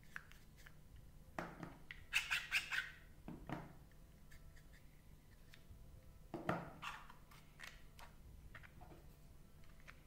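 Curved 3D-printed plastic telescoping hinge segments being slid against each other by hand, giving scratchy rubbing with light clicks in two short bouts: one about a second and a half in, and another around six and a half seconds.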